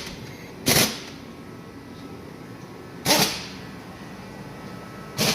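Short, sharp whooshing bursts, three in all, the first about a second in, the second about three seconds in and the last near the end, over a steady background hum.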